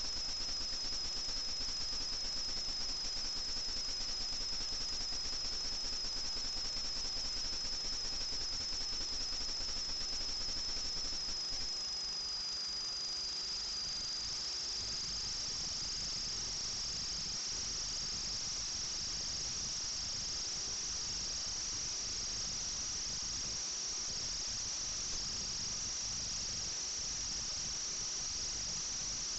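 FPV quadcopter's electric motors whining steadily at a high pitch over a hiss of rushing air. The pitch rises slightly about twelve seconds in, as the throttle changes.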